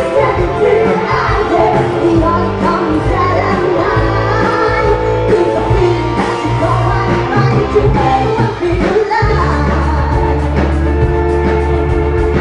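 Live cover band playing rock/pop music, with a woman singing lead into a microphone. About nine seconds in the singing falls back and a steady low bass note holds under the band.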